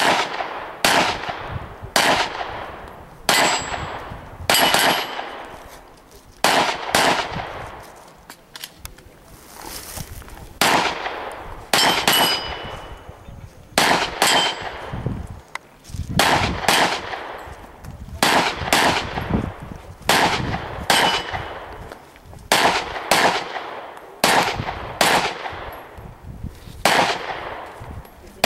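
Slow, steady string of about twenty gunshots, roughly one a second, as a competitor engages steel targets. Several shots are followed by the brief high ring of a hit steel plate.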